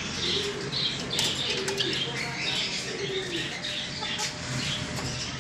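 Captive chukar partridges (chakor) calling: many short, repeated chirps with some lower notes, and a few brief rustles or wing flutters.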